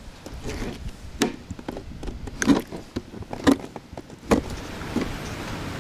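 A series of hollow knocks and clunks, roughly one a second, from things knocking against a boat.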